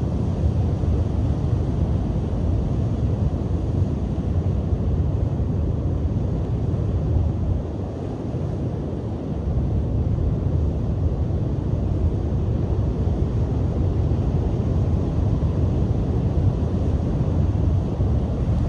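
Strong sea wind buffeting the microphone as a steady low rumble, over surf breaking on the shore. The wind eases for a moment about eight seconds in, then picks up again.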